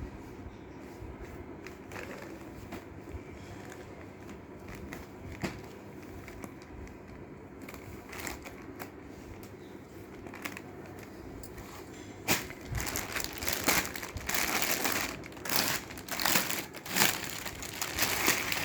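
Crinkling and rustling of a saree's packaging being handled and unwrapped. It is faint and scattered at first, then louder in irregular bursts over the last six seconds or so.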